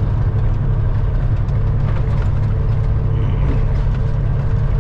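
A 2006 Peterbilt 379's Caterpillar C15 inline-six diesel pulling at road speed, heard inside the cab as a steady low drone with road noise.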